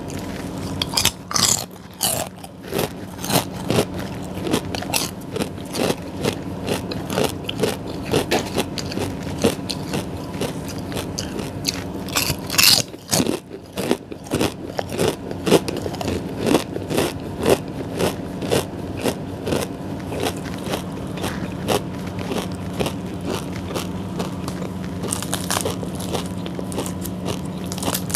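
Close-up eating sounds of crispy fried food: repeated crunchy bites and chewing, with a steady low hum underneath.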